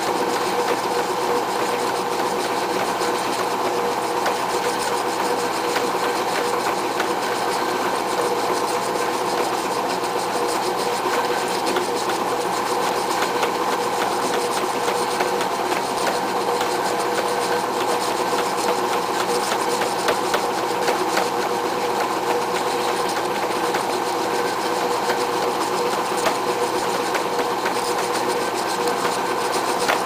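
A machine running steadily with a constant-pitched hum that does not change.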